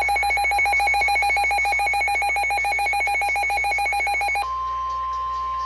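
Electronic alert tones of a NOAA Weather Radio warning: a rapidly pulsing buzzy beep for about four seconds, then an abrupt switch to one steady pure tone, the 1050 Hz weather-radio warning alarm tone that precedes the spoken warning.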